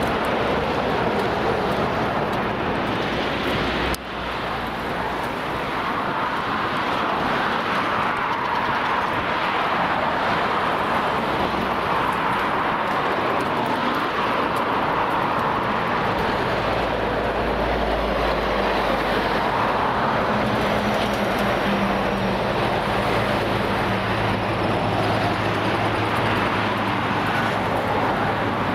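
Steady road traffic noise from cars passing on a bridge roadway, with a low rumble about halfway through and an engine drone in the later part as a vehicle goes by.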